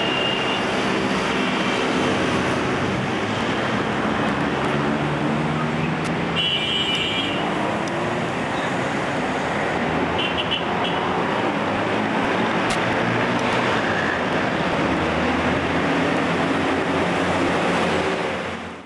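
Busy road traffic: a steady din of passing engines and tyre noise, with a couple of short high tones about six and ten seconds in.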